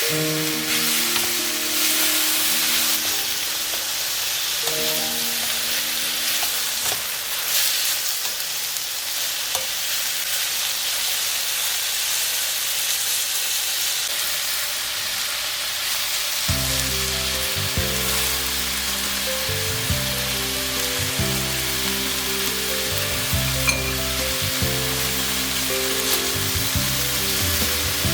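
Shrimp and mung bean sprouts stir-frying in a hot pan, sizzling steadily as they are stirred. Background music plays faintly at first and comes in louder a little past halfway.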